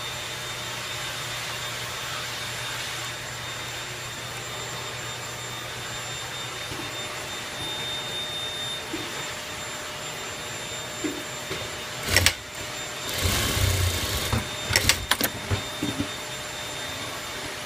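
JACK Shelly-IIEC lockstitch sewing machine with a direct-drive servo motor: a steady hum with a faint high whine while it stands. About twelve seconds in comes a loud clack, then a short run of stitching lasting about a second and a half, then a few sharp clicks.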